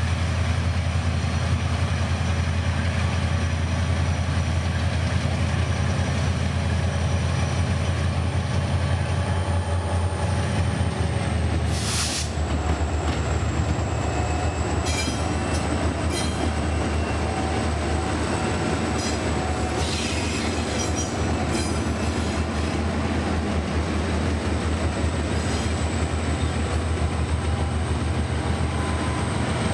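Long freight train running past, with a heavy low rumble from the locomotives and the wagons' wheels clicking and squealing on the rails. A short burst of noise about twelve seconds in.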